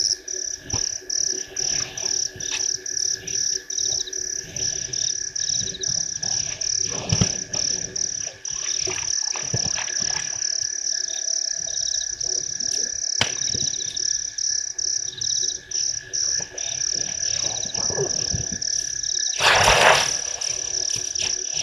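Frogs and insects calling in a steady night chorus at the waterhole, a high pulsing trill repeating several times a second over a steadier, lower drone. A brief, loud rush of noise breaks in near the end.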